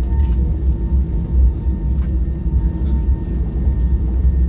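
Steady low rumble inside the cabin of an Airbus A320-214 on the ground, its CFM56 engines idling, with a few faint ticks.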